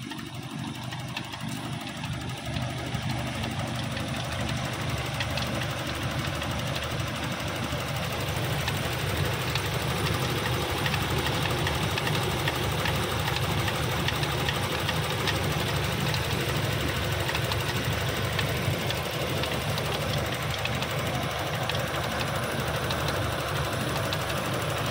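Toyota Kijang LGX engine running steadily at idle with a fast ticking over its note, the strange, rough engine sound that the owner is showing. It grows louder over the first several seconds, then holds steady.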